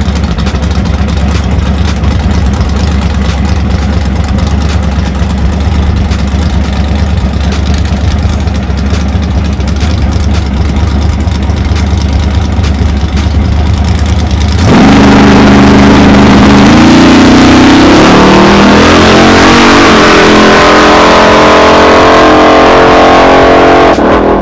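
Supercharged LS V8 of a Chevy pickup idling steadily at the drag-strip starting line, then launching at full throttle about fifteen seconds in: the engine suddenly gets much louder, its pitch climbing and dropping back at each gear change through the run.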